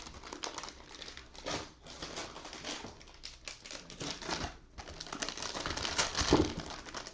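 Trading cards and plastic being handled: rustling and crinkling with a quick string of light clicks and taps, busiest about five to six seconds in.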